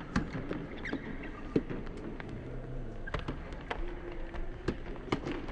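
Indoor soft tennis rally: irregular sharp taps of the soft rubber ball off the rackets and the court, with a few short shoe squeaks on the hall floor.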